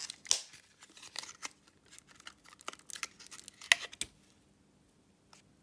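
Wrapped watercolour half pans and their packaging handled by hand: a quick run of crinkles, crackles and small taps that stops about four seconds in.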